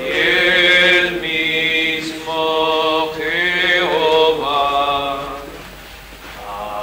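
Men's voices singing a slow communion hymn, long held notes in phrases, with a short pause between phrases about six seconds in.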